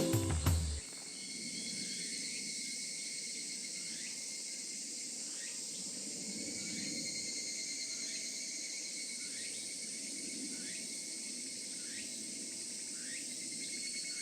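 Higurashi (evening cicadas) and other insects calling in a steady high drone, with a short rising call repeated about once a second.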